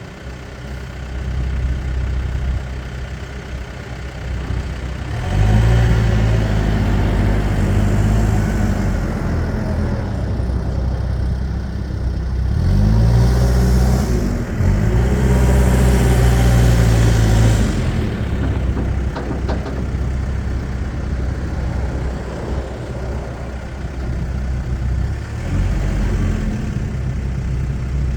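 Case 590 Super M backhoe's diesel engine idling, then running up in speed about five seconds in, dipping briefly, running high again and settling back to idle about two-thirds of the way through.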